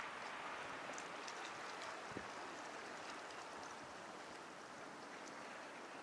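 Small sea waves washing against the shore, a steady watery hiss with faint crackling, and one soft knock about two seconds in.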